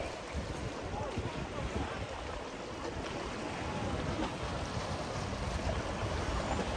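Outdoor wind buffeting the microphone in irregular low gusts over a steady wash of noise.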